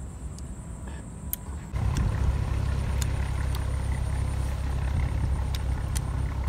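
A steady low rumble that suddenly becomes louder a little under two seconds in, with a few faint clicks.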